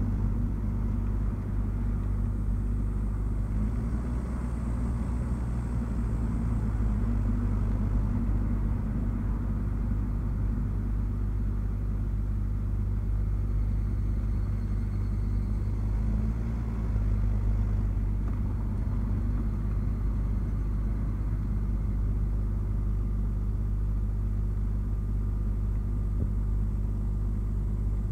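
Nissan Note e-POWER on the move on a winding road: a steady low rumble of the car's tyres and drivetrain, with a few faint steady hum tones underneath.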